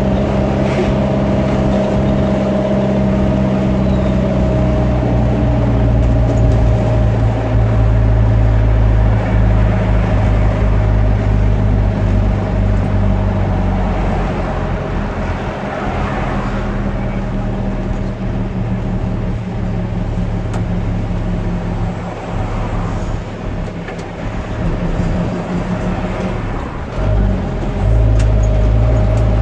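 A car running steadily while driving, with a continuous low engine hum whose pitch shifts about halfway through and again near the end.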